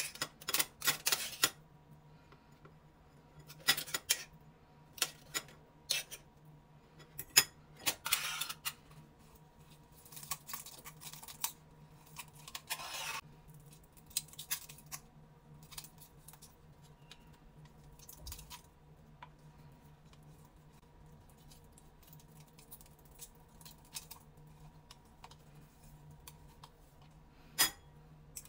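A metal fork and a stainless steel potato ricer clinking and scraping against each other as boiled eggs are mashed and pressed through the ricer. Short sharp clicks and scrapes come thick in the first half and sparse later, over a faint steady hum.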